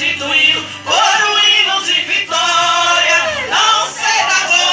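Women singing a gospel hymn together, the lead voice into a handheld microphone, with long held notes.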